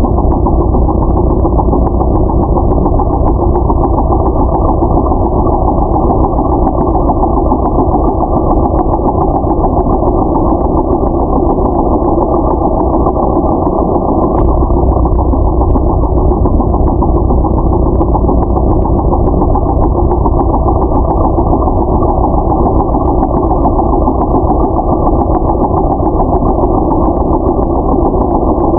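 A ship's engine running steadily: a constant low rumble with a fast, even firing beat that does not change.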